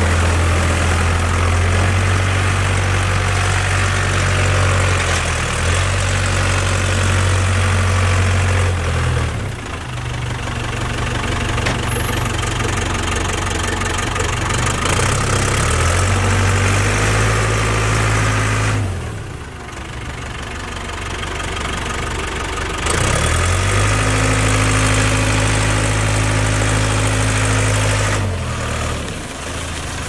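Ford diesel engine of a 1996 Ford 555D backhoe running, its speed rising and falling. It drops back to a lower, quieter idle about nine seconds in, again around nineteen seconds, and near the end, then climbs back up in between.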